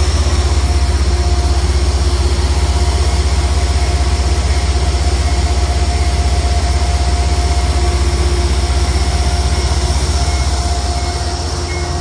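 Amtrak P32 diesel locomotive standing with its engine running: a loud, steady deep rumble with a steady hum and whine from the machinery above it, easing a little near the end.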